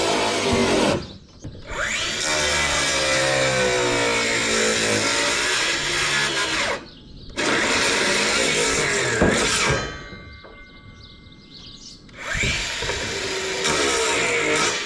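A handheld power tool running in bursts, its motor pitch wavering with the load. It stops briefly about a second in and again around seven seconds, then stops for about two seconds near ten seconds before starting up again.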